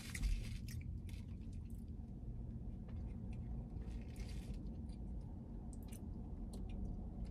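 A person chewing a mouthful of chicken tender with the mouth closed: faint, soft chewing and small mouth clicks over a low steady hum. The bite is tough and gristly, full of cartilage.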